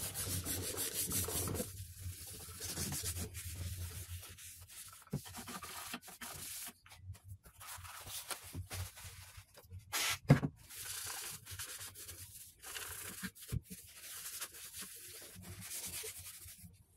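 Paper tissue wiped back and forth over the turntable's plinth top, a scratchy rubbing. It runs steadily for the first couple of seconds, then comes in short stop-start strokes, with a light knock about ten seconds in.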